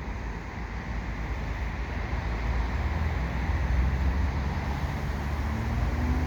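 Freight train rolling slowly as it comes to a stop: a steady low rumble that builds slightly, with a faint rising tone near the end.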